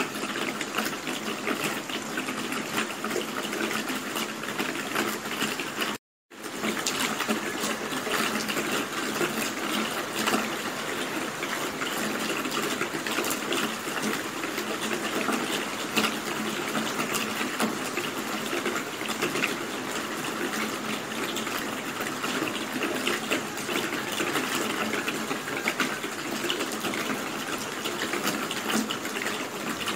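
Steady rain, a dense even hiss scattered with many separate drop ticks. The sound cuts out completely for about half a second some six seconds in, then resumes unchanged.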